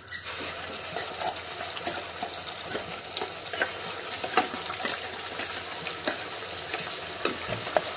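Hot oil in a kadhai sizzling and spitting as a wet ground onion, dry coconut and coriander paste goes in, starting right at the beginning and running on steadily with many small crackles. A metal spoon scrapes and taps the paste out of a steel mixer jar.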